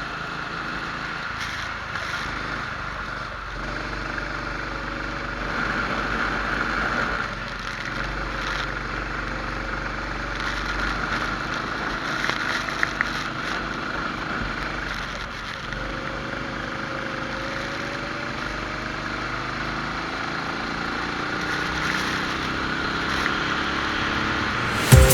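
Rental kart engine running at low, slowly varying revs, with a couple of short clicks about halfway through.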